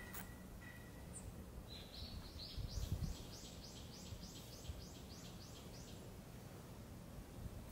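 A bird singing: a faint run of about a dozen quick, repeated high arching notes, about three a second, over a low outdoor rumble with a brief low bump near the middle.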